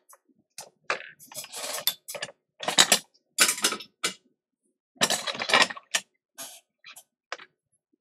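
A string of irregular short clicks, scrapes and clatters, about a dozen, the loudest in the middle: small metal tools and parts being handled at a repair bench.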